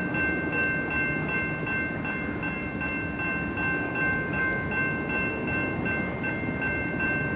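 A train running on rails: a dense, continuous rolling noise with a fast, even pulse and several steady high ringing tones over it.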